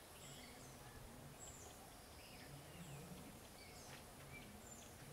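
Faint chirps and short falling whistles of small birds, repeating many times over a quiet background hiss.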